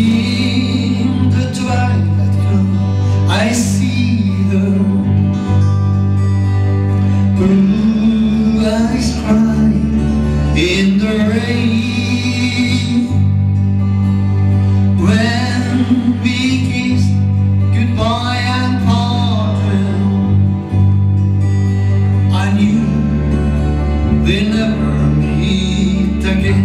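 Country song performed live: a guitar played with singing over a steady bass line.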